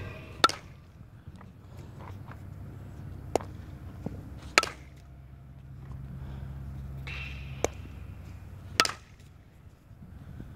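Softball bat striking pitched balls: sharp cracks every few seconds, with lighter knocks between them.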